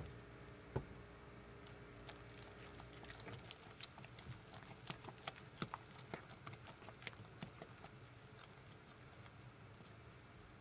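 Spatula stirring thick hot-process soap batter in a slow-cooker crock: soft, irregular clicks and squelches of batter and spatula against the crock, busiest in the middle, with one sharper knock about a second in.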